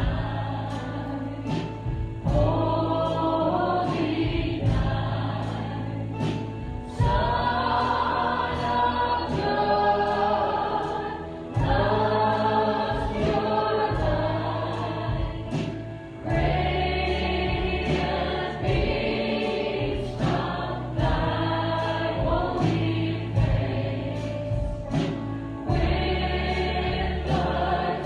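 Christian worship song sung by a group of voices over a band, with sustained bass notes and a steady beat.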